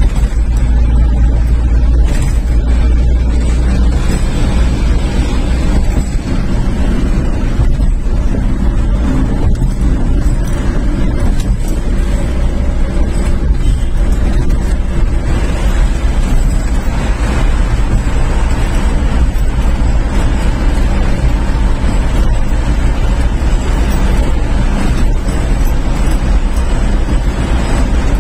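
Steady, loud running noise of a moving road vehicle heard from inside it: engine and tyre rumble on the highway.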